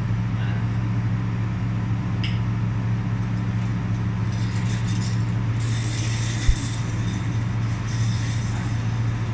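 Fiber laser welding machine running with a steady low hum. Stretches of high hissing come in about four to seven seconds in and again near eight seconds, as it welds aluminium battery busbars. There is one short low thump midway through the hissing.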